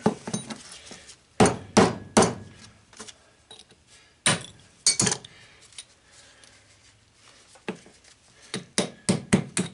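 Hammer striking a steel punch to drive copper tubing out of a brass plumbing fitting set on a socket, each blow a sharp metallic clink. The blows come a few at a time, working around the edge of the tube, then a quicker run of taps near the end.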